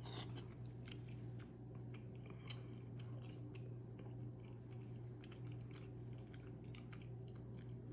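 Close-up chewing and soft wet mouth sounds of someone eating a sweet potato piece from a bowl of malatang, with small clicks scattered throughout. A steady low hum runs underneath.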